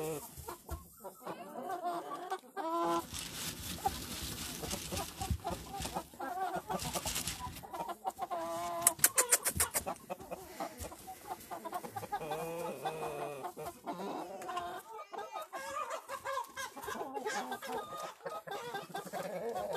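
A flock of Light Brahma chickens clucking and calling, with a quick run of sharp clicks about halfway through.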